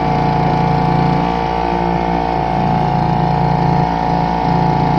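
Outboard motor on an inflatable boat running at a steady cruising speed, with an even drone.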